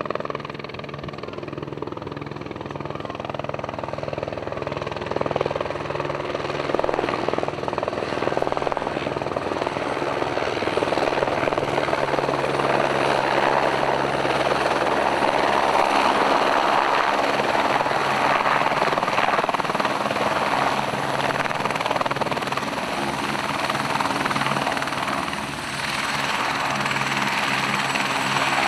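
AS350 Squirrel rescue helicopter's rotor and turbine running steadily as it descends and touches down, with an even pulsing beat at first and growing louder as it comes close. After landing the rotor keeps turning and a thin high whine stands out.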